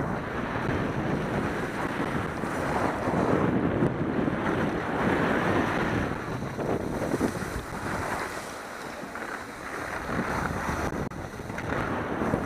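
Wind buffeting the microphone: a steady rushing noise that swells and dips, with a quieter lull a little past the middle.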